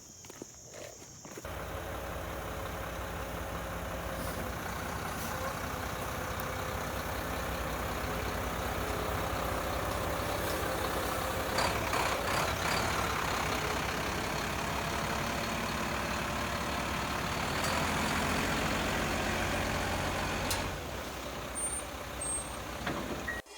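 Concrete mixer truck's diesel engine running steadily, cutting in abruptly about a second and a half in and falling away near the end.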